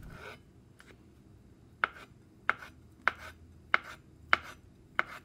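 Chef's knife slicing hard-boiled egg whites into thin strips on a plastic cutting board: six even taps of the blade on the board, a little over half a second apart, starting about two seconds in.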